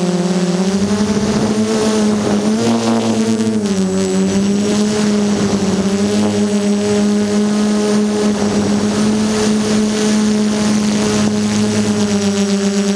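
DJI F330 Flame Wheel quadcopter's electric motors and propellers buzzing steadily in flight, heard close up from the onboard camera. The pitch rises and wavers about a second in, then drops back and holds level from about four seconds on.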